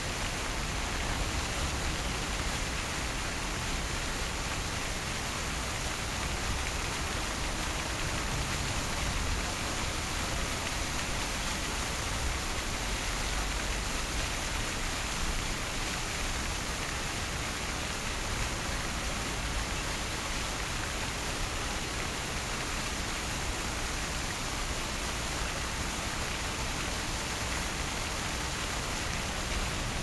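Fountain water splashing and falling steadily: an even, unbroken rushing hiss.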